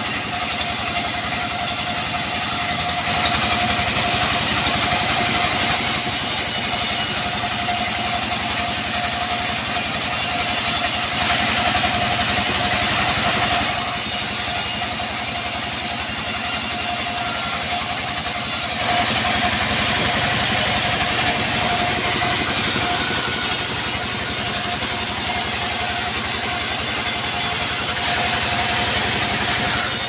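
Vertical bandsaw mill running, its band blade sawing through a log as it is fed through to cut planks, with a steady whine throughout. The cutting noise changes briefly about every eight seconds.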